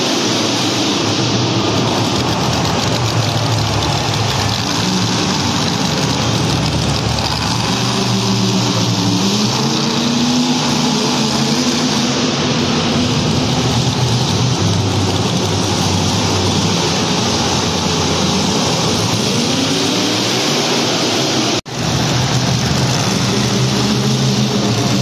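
Monster truck engine running hard and revving, its pitch climbing and falling several times in the middle. The sound cuts out for an instant near the end, then the engine carries on.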